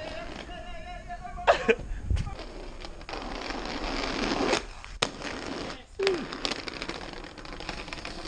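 Small skate wheels rolling over tarmac and paving, a continuous rough rumble with wind on the microphone, broken by a few sharp clacks, the loudest a pair about a second and a half in.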